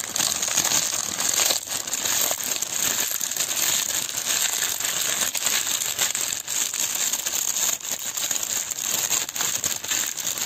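Potato chips being crushed by hand inside their opened foil-lined Lay's packet: continuous crinkling of the bag with dense crunching and crackling of the breaking chips.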